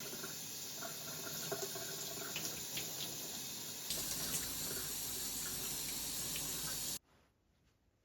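Tap water running into a sink, with small splashes; the sound turns fuller and heavier about four seconds in and cuts off abruptly near the end.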